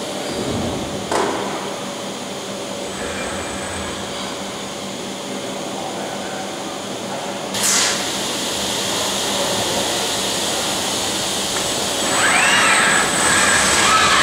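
Robotic weld-grinding cell running: a steady mechanical hum and air-extraction noise, with a knock about a second in and a short burst of noise about halfway through. Near the end, whines rise and fall as the robot's grinding head works.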